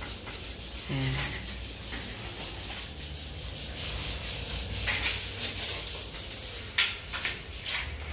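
Scraping and rubbing noises with several sharp clicks as a worker handles a glass-door frame during installation.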